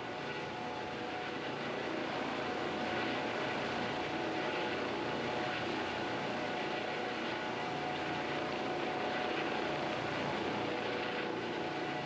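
Helicopter engine and rotor running steadily, a continuous rushing with a steady whine.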